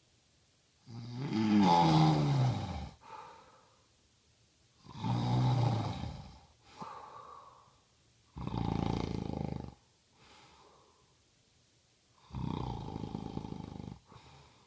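A man snoring in his sleep: four long snores, one about every three and a half to four seconds, each followed by a shorter, softer breath. The first two slide down in pitch.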